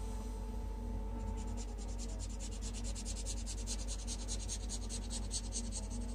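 Fine tip of an alcohol ink marker scratching on photo paper in quick, short, even strokes, about ten a second, starting about a second in.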